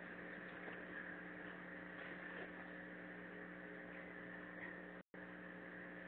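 Steady electrical hum and hiss from a security camera's built-in microphone, with the sound cutting out completely for a split second about five seconds in.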